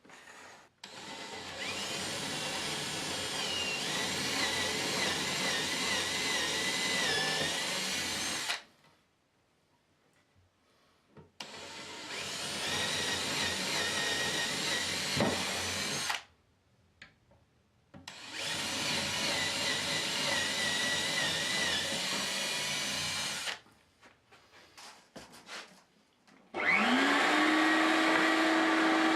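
Electric power tool running in three bouts of several seconds, its pitch wavering as it works. Near the end it spins up quickly and runs at a steady speed.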